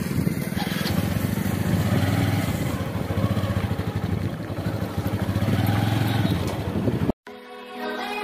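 Motorcycle engine running at riding speed, with wind rushing over the microphone. It cuts off abruptly about seven seconds in, and background music starts.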